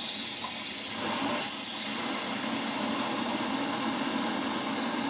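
Water rushing through a just-opened quarter-turn ball valve and supply line into a new water heater tank as it fills: a steady hiss.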